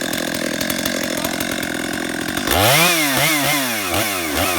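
Chainsaw engine idling steadily, then revved in four or five quick blips from about halfway through, the pitch rising and falling with each one.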